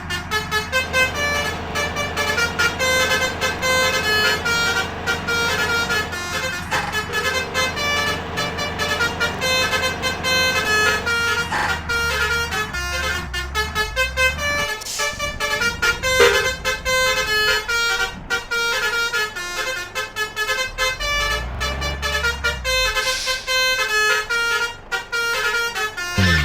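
Telolet multi-tone air horns on convoy vehicles playing quick, repeating melodic note patterns, with engine rumble swelling under them twice.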